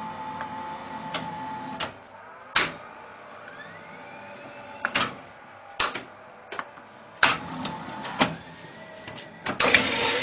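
Sony VO-7630 low-band U-matic video cassette recorder's tape transport being worked by its front-panel buttons: a string of mechanical clicks and clunks, with a motor whine that rises in pitch twice as the tape spools. A louder rush of noise comes just before the end.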